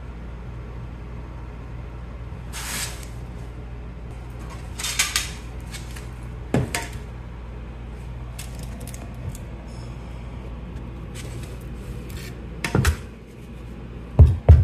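Scattered clicks and scrapes of brick pavers being handled and pressed into mortar and a metal level being laid across them, over a steady low hum. Near the end a rubber mallet starts tapping the pavers down with loud thuds, about three a second.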